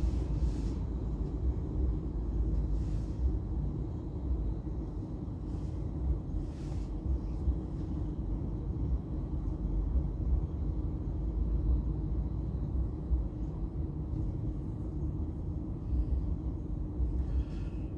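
Car driving, with a steady low rumble of road and engine noise heard inside the cabin, and a few faint ticks.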